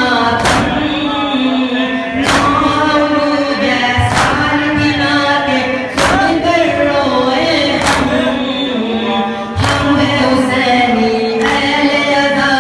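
A group of men singing a noha lament together, the lead voice amplified through a microphone, with the crowd's chest-beating slaps (matam) landing in unison about every two seconds.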